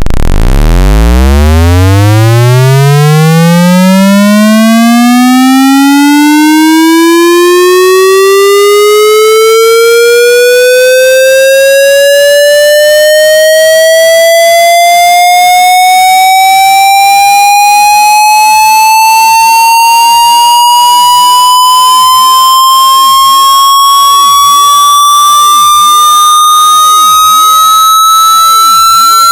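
Synthesized electronic tone, buzzy and rich in harmonics, sliding steadily upward in pitch from a deep low hum to a high whine. It rises quickly at first and then more slowly. Very loud.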